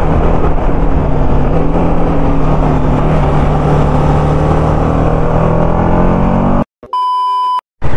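TVS Apache RR 310 single-cylinder engine running at a steady cruise, heard from the rider's seat with wind rushing past. Near the end it cuts out abruptly and a short electronic beep sounds for under a second.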